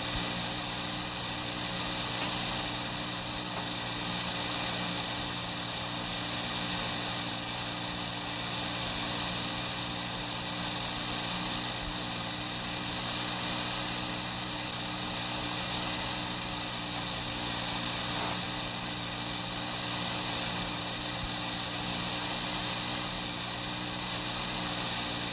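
Steady tape hiss and low electrical hum of an old police radio dispatch recording during a long stretch with no transmissions.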